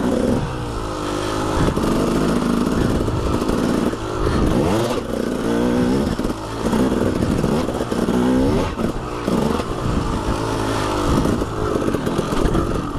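KTM 300 two-stroke dirt bike engine being ridden, revving up and dropping off again and again as the throttle is worked.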